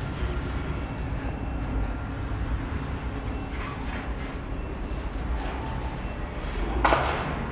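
Steady low rumble of workshop background noise, with a single sharp knock near the end.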